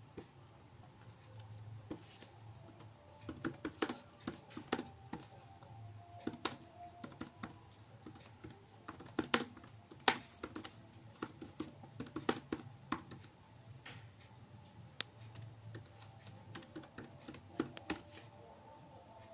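Typing on a MacBook Pro laptop keyboard: irregular runs of quick key clicks with short pauses between them.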